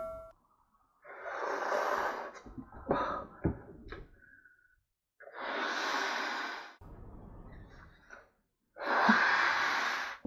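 A person blowing up a latex balloon by mouth: three long, forceful breaths pushed into the balloon, a few seconds apart, with a few short clicks between the first and second.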